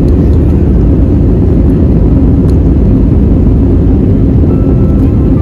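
Steady, loud low rumble inside an airliner's passenger cabin, from engine and airflow noise.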